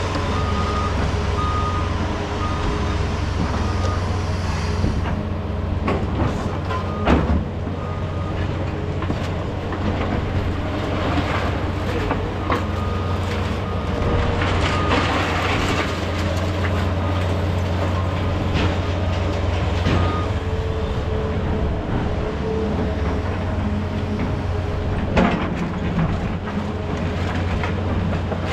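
Heavy diesel demolition machinery running steadily, with scattered clanks and scrapes of concrete debris and a backup alarm beeping in repeated pulses through much of it.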